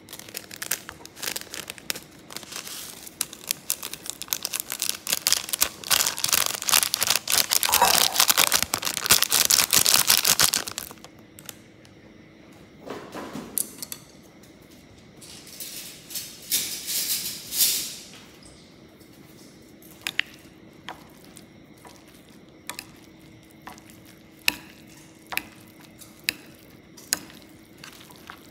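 A plastic seasoning packet crinkles and tears for several seconds, with a shorter crinkling burst a few seconds later, as the sesame and seaweed topping goes onto the noodles. After that come scattered light clicks and clinks of a utensil against a ceramic bowl.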